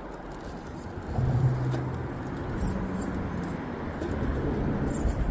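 RC rock crawler's motor and drivetrain whining as it drives and climbs over rock, starting about a second in and shifting up in pitch partway through.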